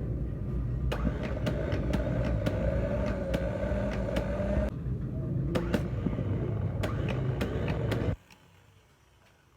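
Six-cylinder diesel engine's starter motor spinning under power: a steady whine with sharp rattling clicks that starts suddenly, drops to a lower tone about five seconds in, and stops suddenly after about eight seconds.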